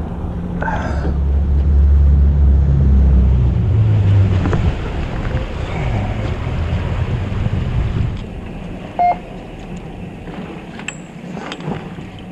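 Fishing boat's engine running with the boat under way, water rushing past the hull; the engine is loudest in the first few seconds, then throttles back about eight seconds in. A short beep about nine seconds in.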